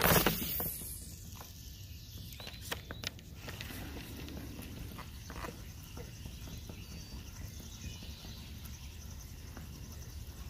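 Fishing rod cast: a sharp swish as the rod is whipped forward and the line runs off the reel, fading within about half a second. After that the lure is reeled back in, with a faint whirring from the reel and a few small ticks over quiet outdoor background.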